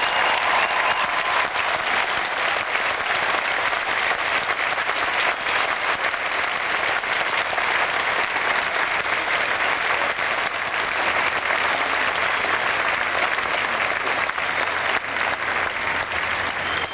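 Large crowd applauding steadily, a dense clatter of many hands clapping that tapers slightly near the end.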